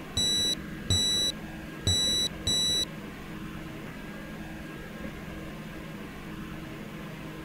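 Digital multimeter's continuity buzzer giving four short, high beeps in the first three seconds as the probes touch the module's ground wires. Each beep shows continuity, meaning the ground connection is good.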